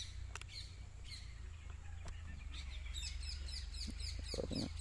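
Small birds chirping: scattered short high calls, then from about three seconds in a fast, regular run of high chirps, about five a second.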